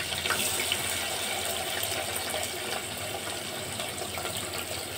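Sliced onions sizzling as they fry in hot oil in an open pressure cooker: a steady crackling hiss that eases a little over the few seconds.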